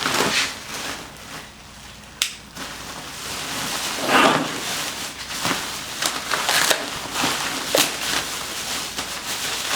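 Packaging rustling and crinkling in irregular bursts as a spoiler is unwrapped and lifted out, with a sharp click about two seconds in.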